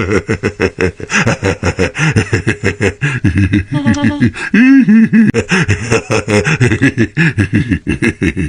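Giant walrus cartoon character laughing: a loud, rapid, pulsing voice-made laugh, its pitch bending up and down.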